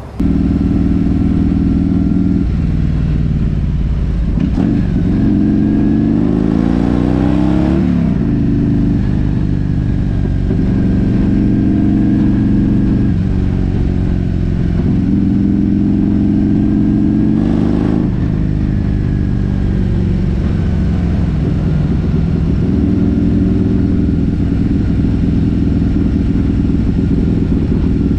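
Harley-Davidson Road King's V-twin engine running on the road, loud and steady. Its pitch rises as it accelerates between about four and eight seconds in, then drops and climbs again several times with throttle and gear changes.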